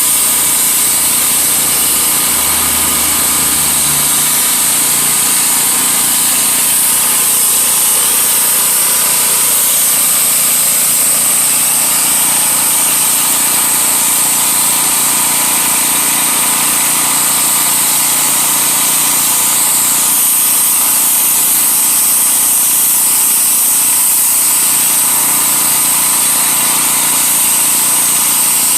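Pressure washer running steadily: its engine runs under a loud, continuous hiss of high-pressure water spray on concrete.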